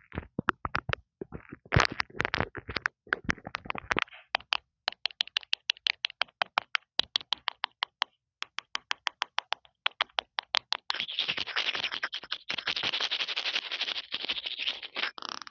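Rapid tapping on an earphone's microphone, at times in a regular run of about six taps a second, changing about eleven seconds in to steady scratching across it.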